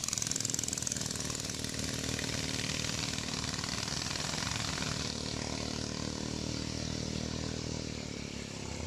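Motorboat engine running at speed, a steady drone that eases off slightly near the end.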